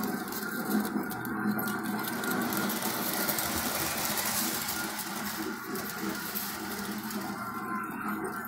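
Electric model train running steadily on three-rail track, a continuous small-motor whir with fine mechanical clatter.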